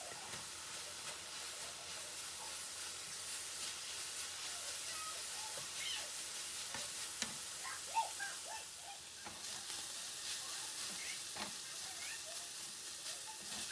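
Food sizzling in a frying pan, a steady hiss with scattered small clicks of stirring. A few short, faint high squeaks come through over it.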